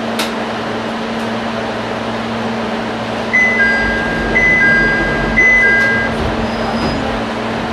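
Inside a stopped Ichibata Electric Railway 5000-series railcar: the car's equipment hums steadily, and about three seconds in a high-low two-note electronic chime sounds three times, about a second apart.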